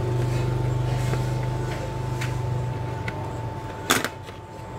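Power-supply cables being plugged into a motherboard: a steady low hum that fades out about three seconds in, a few faint clicks, and one sharp click near four seconds.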